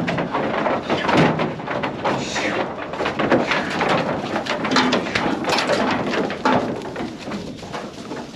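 Goats being sorted in a pen: repeated knocks and clatter from the pen and gates as the goats move, with short goat calls mixed in.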